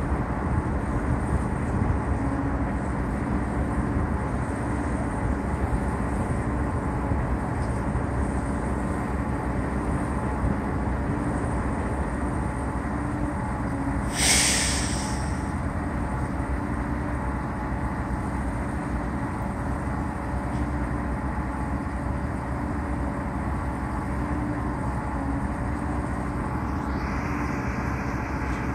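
A large engine running steadily at low speed, with one short, loud hiss of released air about halfway through and a fainter hiss starting near the end.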